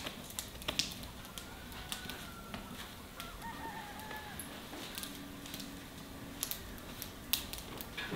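Faint chickens clucking in the background, with scattered light clicks and knocks.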